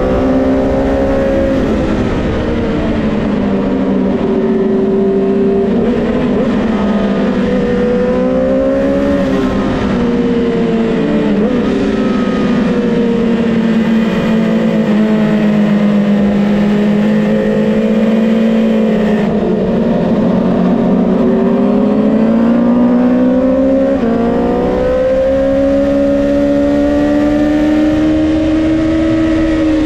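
Onboard sound of a Honda CBR650R's inline-four engine at race pace, with wind rush on the camera mic. The engine note falls as the bike brakes and shifts down from fifth to second, holds low through a slow corner, then rises under hard acceleration. It drops sharply once for an upshift about four-fifths of the way through before climbing again.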